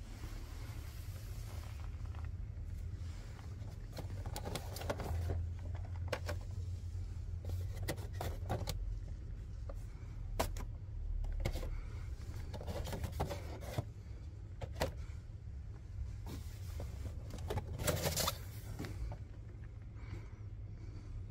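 Boxed Funko Pop figures being handled and shifted on a shop shelf: scattered clicks, knocks and rustling scrapes of cardboard and plastic-window boxes, over a steady low hum.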